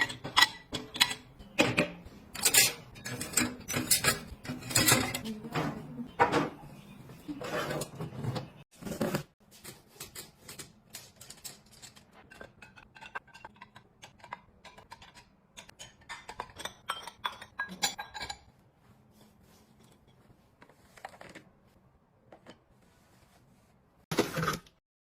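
Clinks, taps and clatters of household items being handled, like dishes and utensils set down and moved. Busy for the first nine seconds or so, then sparser and quieter, with only a few taps in the last stretch.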